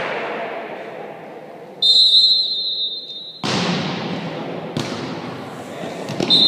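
Referee's whistle blown in one steady shrill blast of about a second and a half, then a sharp volleyball hit that echoes around the sports hall, and a lighter ball contact about a second later. The whistle blows again near the end, over a background of voices.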